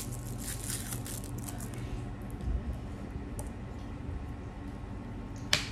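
A paper drink carton and a plastic straw being handled: faint rustles and light taps, a soft thump about halfway, and one sharp click near the end, over a steady low hum.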